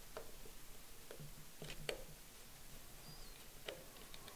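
Faint scattered clicks and taps of a small screw, nut and tool being handled and tightened on a drone frame, with a brief faint squeak about three seconds in.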